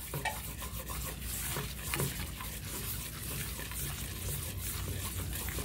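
A whisk stirring and scraping a thick butter-and-flour roux around a nonstick skillet on the heat. It makes a steady soft scraping with light sizzling and a few faint ticks, as the raw flour taste is cooked out for a white gravy.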